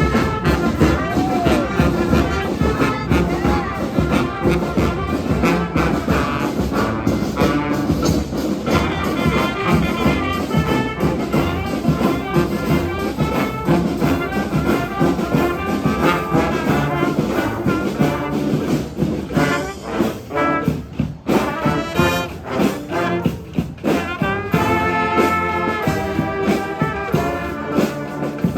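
Street brass band playing in a parade, trombones and trumpets over drums.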